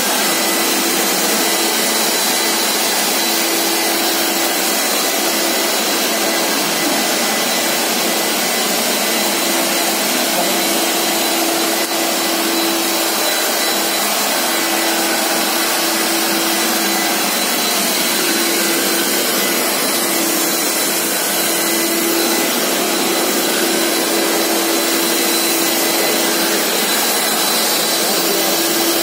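Walk-behind auto scrubber dryer running while it scrubs and squeegees a hard floor. Its suction motor gives a loud, steady rush of air over an even hum and a faint high whine.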